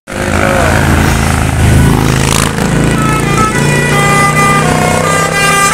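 Tour bus's Basuri 'telolet' musical horn playing a loud tune of stepped notes over the bus's diesel engine.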